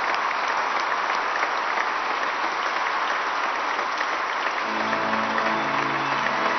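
A congregation applauding steadily, with held musical notes: one set fades out at the start, and another comes in about three-quarters of the way through.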